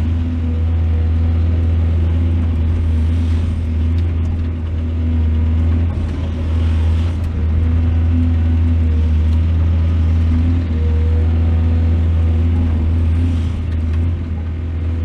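Large excavator's diesel engine running steadily under load, a deep hum with a few brief swells of hiss.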